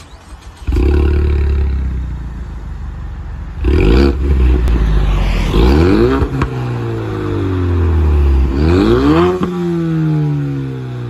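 The turbocharged 2.3-litre EcoBoost four-cylinder of a Ford Mustang, heard through an aftermarket valved exhaust with the valves open. The engine fires up about a second in and settles into a high idle. It is then revved three times, each rev rising and falling back.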